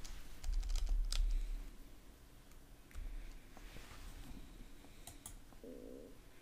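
Computer keyboard keystrokes and mouse clicks: a quick run of key taps in the first second and a half, then a few single clicks. A short low hum comes near the end.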